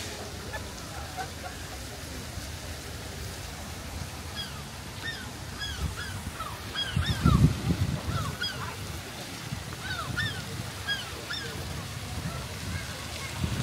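A flock of birds calling, many short, high calls one after another and overlapping. A low rumble swells about halfway through.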